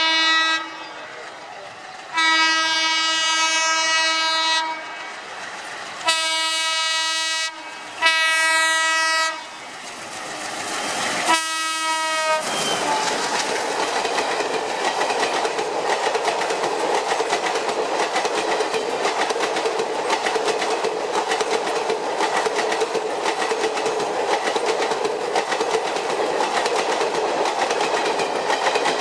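Indian Railways train horn blown in a series of long blasts, the last one short with its pitch bending, followed by the train running past with a steady rumble and the fast clickety-clack of its wheels over the rail joints.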